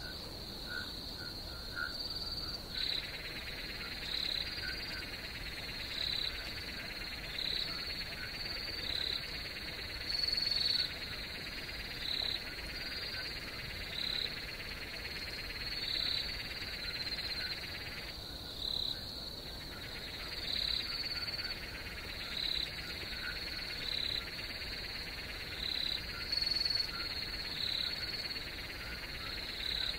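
Night chorus of frogs and insects. A steady high trill runs under a chirping call that repeats about every second and a half. A fuller buzzing layer comes in a few seconds in and drops out briefly a little past the middle.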